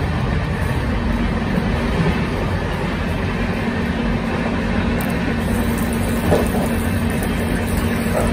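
Steady running rumble of an Indian Railways First AC passenger coach travelling at speed, heard from inside, with a constant low hum. From about halfway through, water runs from a push tap into a steel washbasin, adding a hiss.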